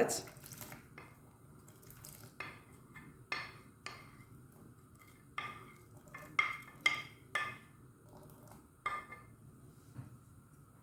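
Chunks of cut red onion dropped one by one into a pot of water: a string of short plops and small splashes, about ten, irregularly spaced.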